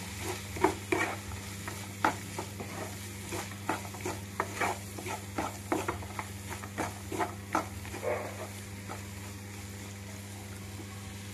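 A wooden spatula scraping and tapping against a nonstick kadhai as onion, tomato, peas and spices are stirred together over a soft sizzle of frying. Short, irregular strokes that thin out over the last few seconds, with a steady low hum underneath.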